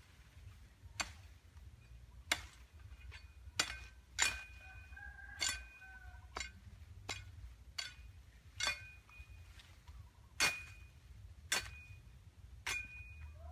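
Machete chopping at a thin woody stem: about a dozen sharp strikes roughly a second apart, several with a short metallic ring after the blow.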